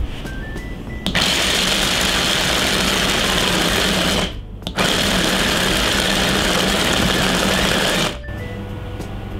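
Small electric mini chopper running in two bursts of about three seconds each, with a short pause between, its blades grinding peanuts into coarse crumbs.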